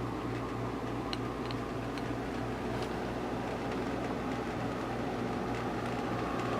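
A steady low mechanical hum, like a fan or air-handling unit running, with a few faint ticks.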